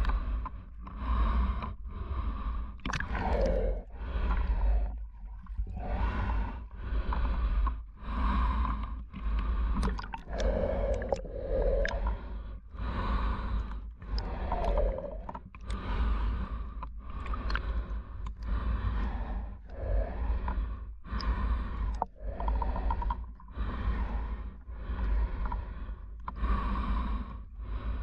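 Swimmer snorkelling in a full-face snorkel mask: rhythmic breathing and water sloshing, a burst about every second, over a steady low rumble of water on the microphone.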